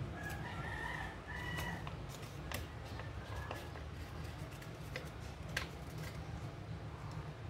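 A sheet of origami paper being folded and creased by hand, with a few short sharp crackles. In the first two seconds a distant high-pitched call sounds, over a steady low hum.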